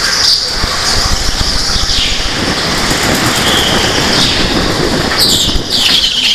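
Go-karts running on an indoor track, with tyres squealing, loudest near the end.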